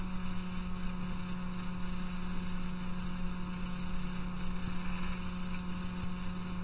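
Steady low electrical hum, a single unchanging tone, with a faint hiss behind it.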